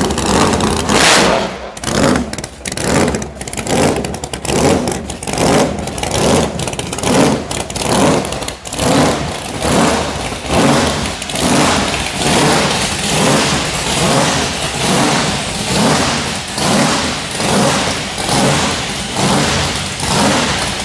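Supercharged 426 Hemi of a 1969 Plymouth Barracuda drag car running loud and rough, its sound swelling and falling in a regular pulse about once a second.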